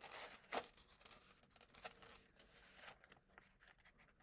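Faint rustling of a picture book's paper pages being handled: a few soft, brief brushes over near-silent room tone.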